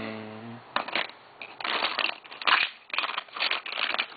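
A brief steady low buzzing tone at the start, then close crackling and rustling, like something being rubbed or crumpled right by the microphone, loudest in the middle.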